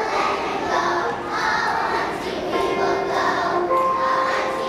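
A choir of kindergarten children singing together over music, with long held notes.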